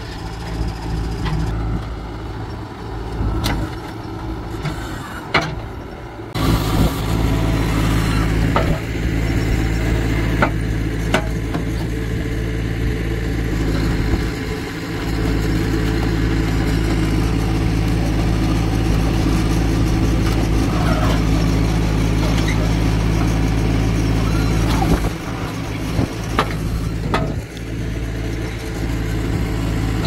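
Heavy diesel machinery engines running, a steady low drone with a few sharp knocks scattered through. The sound jumps in level about six seconds in and again near the end.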